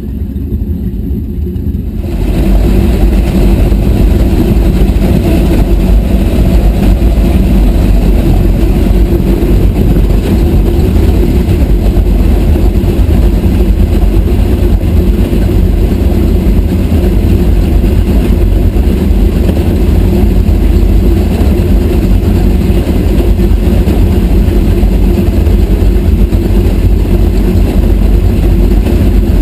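Twin MerCruiser HP500 big-block gas V8 boat engines running at a steady speed, heard close up through the open engine hatch. The sound becomes much louder about two seconds in and then holds even, with no revving.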